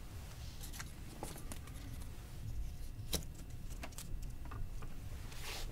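Faint handling sounds and a few small clicks as a pie-chart wedge is taken from a whiteboard tray and pressed onto the whiteboard. The sharpest click comes about three seconds in, over a low steady room rumble.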